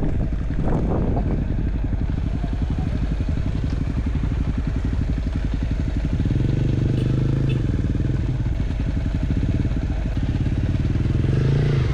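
Motorcycle engine running under way, a low, even pulsing at first; about halfway through the revs pick up and the engine holds a steady, higher note.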